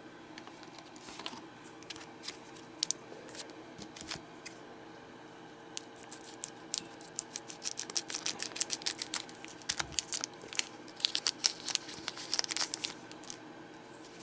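Scissors snipping through a foil trading-card booster pack, with the wrapper crinkling. A few scattered clicks of handling come first, then a dense run of quick snips and crinkles from about six seconds in until near the end, over a faint steady hum.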